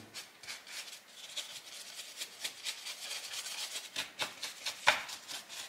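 Flat paintbrush dry-brushing white acrylic onto rough plaster model rock: the nearly dry bristles scratch over the surface in quick, irregular strokes, with one louder stroke near the end.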